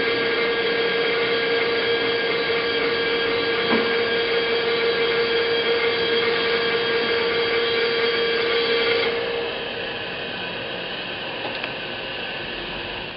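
Kent SGS-1224AHD automatic surface grinder running, a steady machine hum with a steady whine. About nine seconds in, the strongest tone drops out and the machine runs on more quietly.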